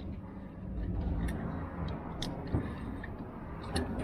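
Steady low rumble of a running vehicle engine, with a few light clicks.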